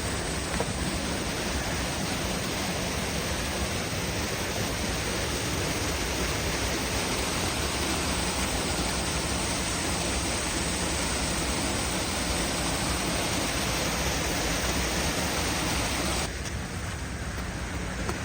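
Steady rush of a waterfall's falling water, an even noise with nothing pitched in it; it drops sharply in level about sixteen seconds in.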